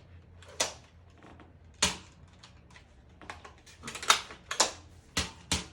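Hard plastic clicks and clacks from toy foam-dart blasters being handled, about eight irregular sharp knocks.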